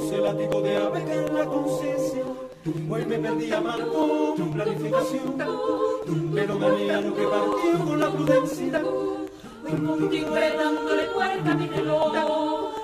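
Mixed a cappella choir singing held chords in close harmony over a repeating low bass line, with two short breaks for breath, about two and a half and nine and a half seconds in.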